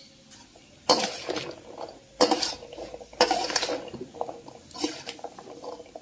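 A steel spoon stirring boiled chickpeas in a stainless steel bowl, clinking and scraping against the metal. There are three sharp clinks about a second apart, each followed by scraping, then softer ones.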